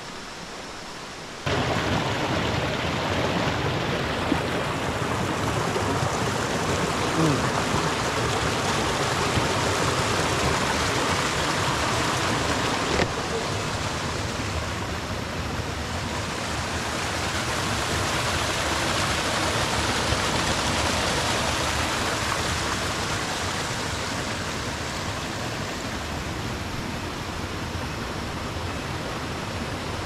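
Steady rushing of running water that cuts in abruptly about a second and a half in, easing slightly about halfway through.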